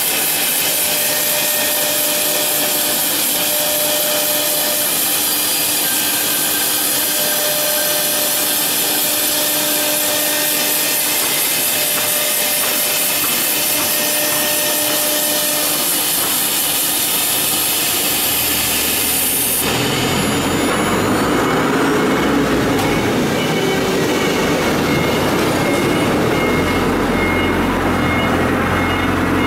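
Four-spindle CNC wood router carving a wooden panel: high-speed spindle whine mixed with the steady noise of the bit cutting the board. About two-thirds through, the sound changes abruptly: the high hiss thins and a lower rumble comes up.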